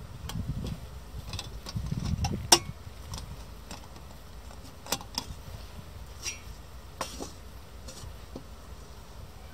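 Thin perforated sheet-metal panels of a folding stove windscreen and its wire pot supports clicking and clinking as they are fitted together by hand. One sharp click comes about two and a half seconds in, followed by several lighter clicks.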